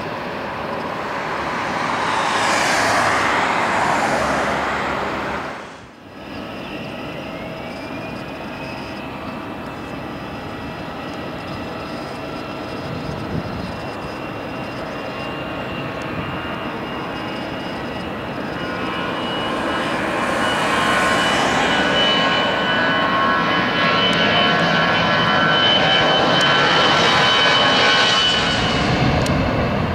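Twin-engine jet airliner turbofans. A taxiing jet's engines swell and fade in the first few seconds, and then, after a cut about six seconds in, come the steady whine of a jet's engines at low power, with one pitch rising briefly. From about twenty seconds in the sound grows louder to full takeoff thrust, a loud rushing noise with a high whine, as the jet rolls and climbs away.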